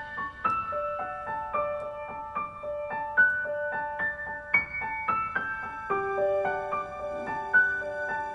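Gentle background music: a piano melody of single held notes played one after another.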